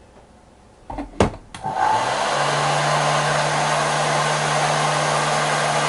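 Heat gun switched on with a couple of clicks about a second in, its fan motor spinning up and then running with a steady blowing whir.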